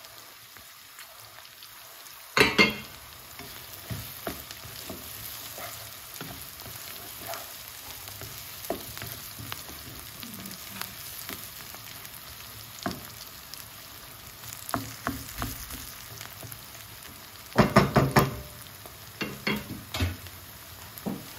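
Sliced onions, garlic and green chillies sizzling steadily in oil in a wok, stirred with a wooden spatula. There is a loud clatter about two seconds in and a quick run of knocks and clatters near the end.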